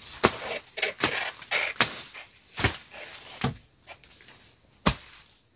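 A hand blade (machete) slashing through undergrowth in about ten sharp cutting strokes. The strokes come fast and uneven in the first two seconds, then sparser, with a hard one near the end.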